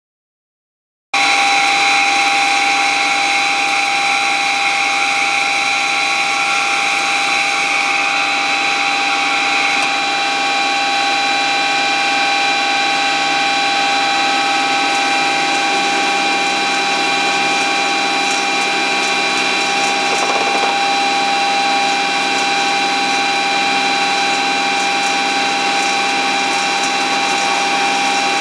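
Marvel 81A9 tilting-head vertical band saw running, a steady mechanical whine with several held tones that begins abruptly about a second in.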